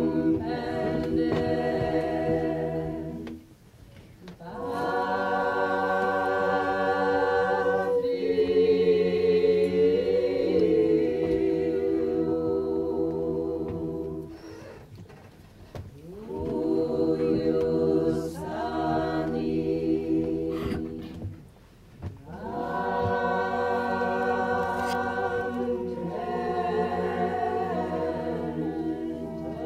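Mixed choir of men's and women's voices singing unaccompanied in long held chords, phrase by phrase, breaking off briefly between phrases three times.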